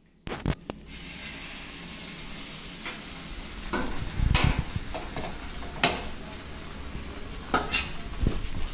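Beaten egg with onion and coriander poured onto a hot flat pan and sizzling steadily from about a second in. Several sharp clinks and scrapes come from a steel bowl knocking against the pan as the egg is spread.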